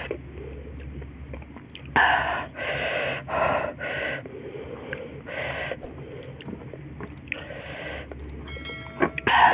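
Sharp, breathy gasps and puffs of air drawn in and out through the mouth while eating very spicy chili-sambal shrimp and rice, about seven of them at uneven intervals, the loudest near the end. A short run of quick clicks comes just before that last breath.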